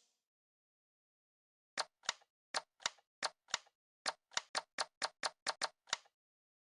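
Toy gun clicking: about sixteen sharp clicks in a quick, uneven run, starting about two seconds in and stopping about six seconds in.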